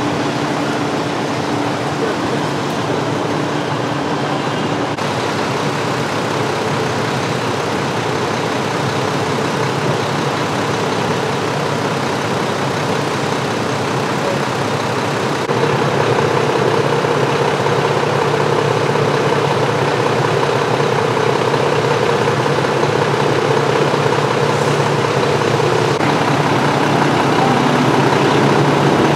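Heavy truck's diesel engine running steadily amid street noise. The sound shifts abruptly about five seconds and about fifteen seconds in.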